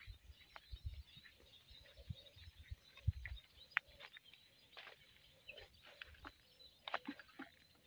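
Countryside ambience: scattered short bird chirps and clicks over a steady high insect drone, with irregular soft low thumps of footsteps on a dirt path.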